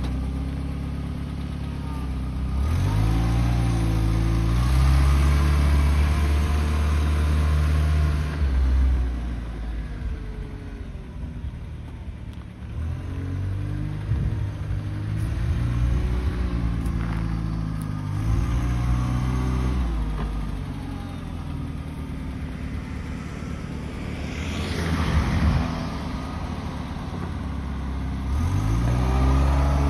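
Combilift C4000 sideloader forklift's engine revving up as the truck pulls away and then easing back down, three times over. There is a short rush of noise about 25 seconds in.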